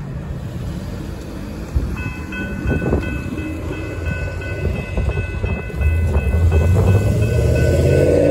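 Railroad crossing warning bell starts ringing about two seconds in as the crossing signals activate. A low rumble from an approaching Metro-North train builds in the second half, and the train's horn sounds near the end.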